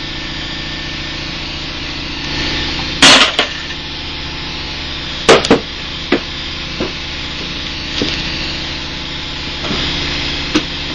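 Scattered knocks and clanks of tools and loose engine parts during the teardown of a blown Chevy 327 V8's bottom end. There is one loud clatter about three seconds in, two sharp knocks a little after five seconds, then lighter taps, over a steady hum.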